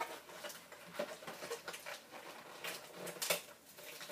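Irregular light clicks and rustles of box packaging being handled as an item is worked free, with a louder cluster of clicks about three seconds in.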